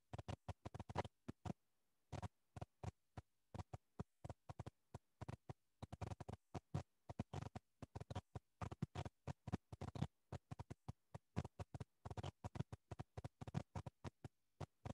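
Faint, irregular crackling clicks, dozens of very short pops with silent gaps between them, coming through a video-call audio stream; typical of a glitching connection, which the teacher had just called a broadcast problem.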